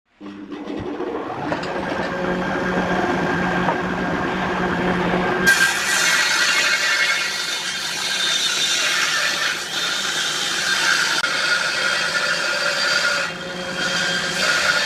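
Stationary woodworking machines working a hardwood board. A motor hums steadily at first. From about five seconds in, a louder hissing sound of a saw blade and then a jointer cutterhead cutting the wood takes over.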